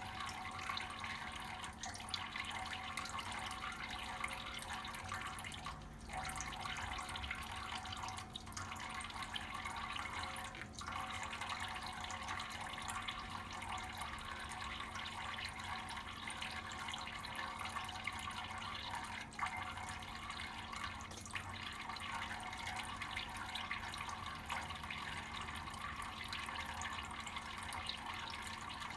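Tap water running steadily from a faucet into a sink, the stream briefly broken a few times.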